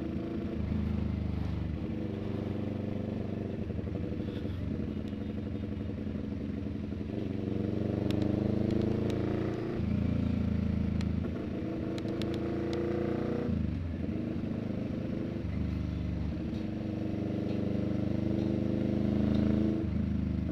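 CFMoto 400NK's 400cc parallel-twin engine through an SC-Project slip-on exhaust run without its silencer, heard from the saddle while riding: the revs climb and fall through gear changes, with sharp drops a little under halfway and again about two-thirds of the way through.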